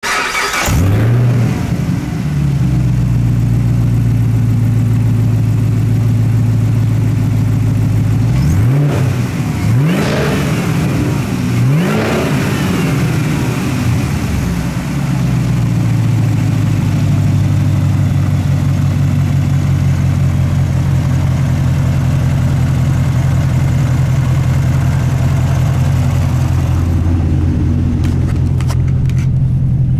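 Supercharged 6.2-litre LT4 V8 from a 2019 Camaro ZL1 running, with a brief flare at the very start, then idling steadily. About eight seconds in it is blipped three times in quick succession, the revs rising and falling each time, before it settles back to a steady idle.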